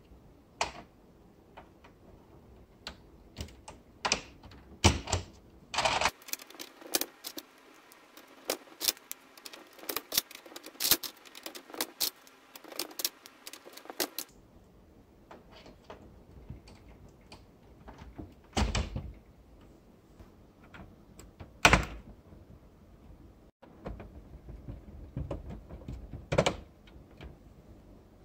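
LEGO Technic plastic parts clicking and clattering as they are handled and snapped together by hand: irregular sharp clicks, with a dense run of them from about six to fourteen seconds in and a couple of louder knocks later.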